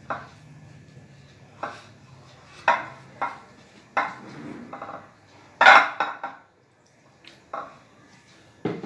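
Irregular clunks and clinks of a glass mixing bowl knocking on a stone countertop as hands squeeze and mix crumbly radish-and-flour dough in it, about eight in all, the loudest about halfway through.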